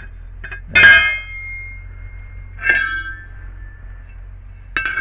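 Steel bracket pieces clanging against metal: three ringing clangs, the loudest about a second in, each ringing on briefly after the strike.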